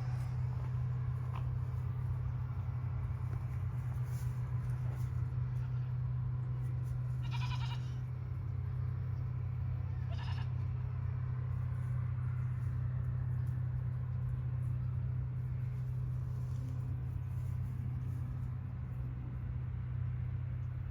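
Goat bleating twice, a short call each time, about three seconds apart, over a steady low hum.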